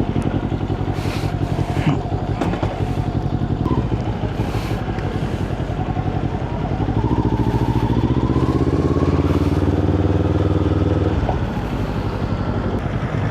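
Kawasaki Ninja 400 parallel-twin engine through a Yoshimura aftermarket exhaust, running under way. About halfway through it pulls harder and louder, its pitch rising slowly, then eases off shortly before the end.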